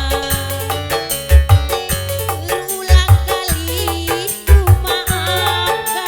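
Dangdut music from an orgen tunggal keyboard band: a keyboard melody over a steady drum beat, with heavy low drum hits about every one and a half seconds and a shaker ticking on top.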